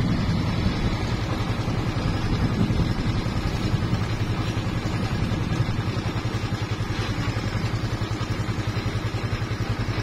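Motorcycle engine running steadily while riding along the road, with a fast, even pulsing beat.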